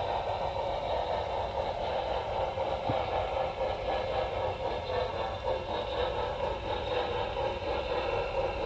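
Model train running on its track, picked up by a camera riding on the train: a steady rolling clatter of wheels on the rails and its running gear.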